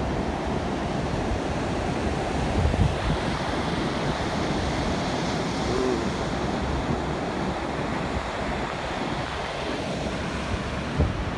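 Steady noise of ocean surf breaking on a beach, with wind buffeting the microphone.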